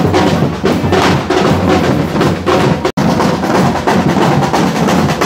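Drums beating a fast, steady rhythm over the hiss and crackle of handheld fireworks. The sound cuts out for an instant about three seconds in.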